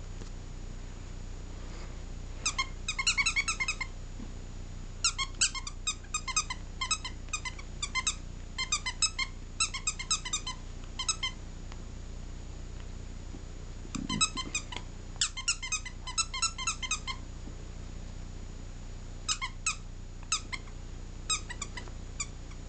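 A squeaky toy squeaked over and over as a chihuahua puppy chews it. The squeaks are short, high and come several a second, in four runs with pauses between.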